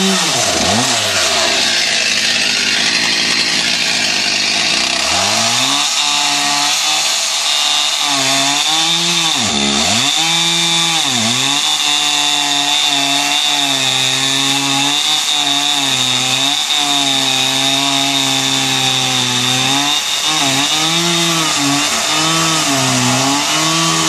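Stihl MS 361C two-stroke chainsaw running at high revs while cutting through a large log. The engine pitch drops and recovers several times as it bogs under load, notably about ten seconds in and again near the end.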